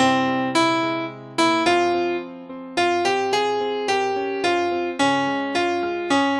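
Piano playing a slow melody over held chords, each note struck and fading away, about two notes a second with a brief pause partway through.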